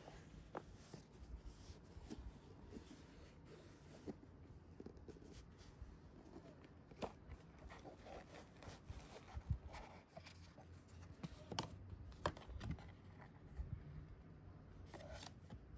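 Faint handling sounds of a soft fabric zippered camera case being opened and a paper instruction card drawn out: scattered light rustles and small taps.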